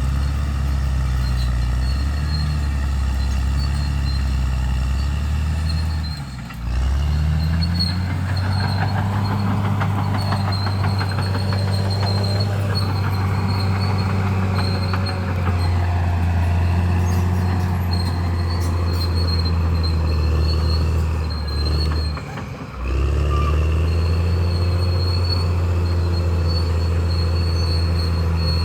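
Crawler bulldozer's diesel engine running steadily under load, with metallic squealing from the tracks and running gear as it pushes through brush. The sound drops away briefly twice, about six and a half seconds in and again near twenty-two seconds.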